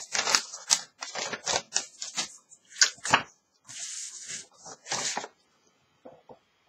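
Paper cards and notes rustling and crinkling as they are handled and sorted through: a quick run of short, sharp rustles that stops about five seconds in.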